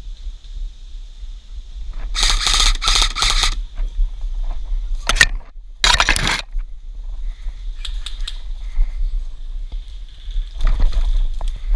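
Rustling and scraping of an airsoft player's movement and gear, in several loud bursts over a steady low rumble.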